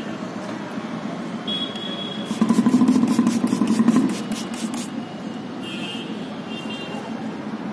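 Street traffic noise, with a motor vehicle passing close by from about two and a half seconds in, loudest for about two seconds. A few short high-pitched tones sound briefly, around the middle and near the end.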